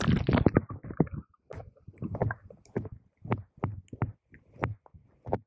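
Muffled underwater sound of a fish trap sinking in a lake: a rush of bubbling water for about the first second, then a string of scattered dull knocks.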